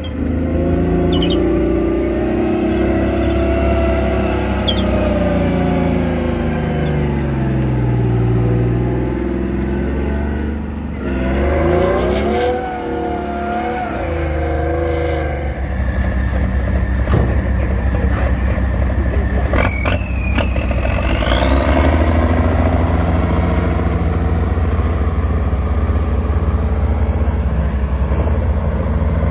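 Heavy military vehicle engines running under load: first a Chieftain tank's engine rising and falling in pitch as it works over a pile of earth, then an M35-type 6x6 army truck's engine running on a dirt track. A high whine rises about three-quarters of the way in and holds.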